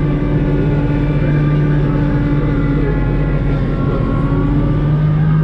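Kubota LX2610 compact tractor's three-cylinder diesel engine running steadily, with a slight waver in pitch around the middle.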